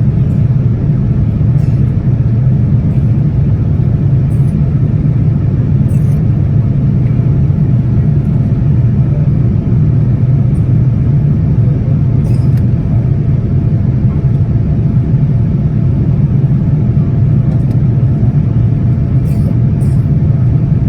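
Boeing 787-10 cabin in flight: a steady, loud, deep roar of engine and airflow noise heard from a rear window seat, with a few faint ticks.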